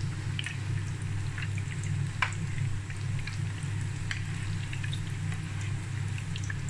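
Breaded potato croquettes frying in hot oil in a pan: a steady sizzle with scattered crackles and pops as they are turned with a metal slotted spoon, and one sharper tick about two seconds in. A steady low hum runs underneath.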